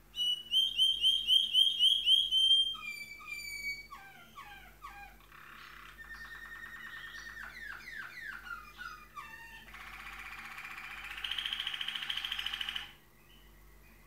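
Malinois waterslager canary singing one long song: loud repeated rising notes about four a second, then a string of varied falling notes and trills, ending in a fast trill that cuts off shortly before the end.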